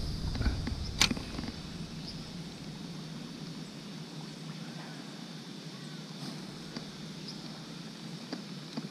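Quiet outdoor ambience: a steady faint high hiss, with one sharp click about a second in.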